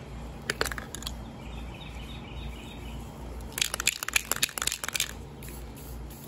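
A nearly empty Rust-Oleum Painter's Touch 2X gloss black spray can being shaken, its mixing ball rattling in a quick run of clicks for about a second and a half past the halfway point, after a few single clicks near the start.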